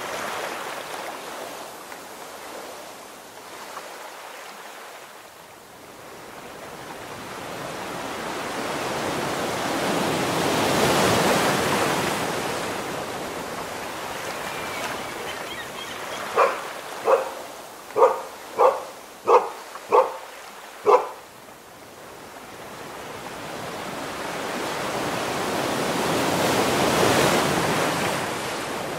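Sea waves breaking and washing up the shore, swelling twice. About two-thirds of the way through, a dog barks seven times in quick succession, louder than the surf.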